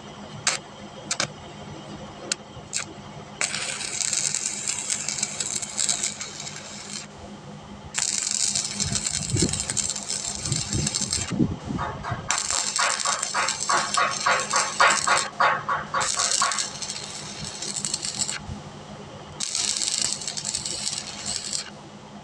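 Electric arc welding: four crackling, sizzling bursts of a few seconds each as beads are laid, with short pauses between. A few sharp clicks come before the first burst, and a low steady hum runs throughout.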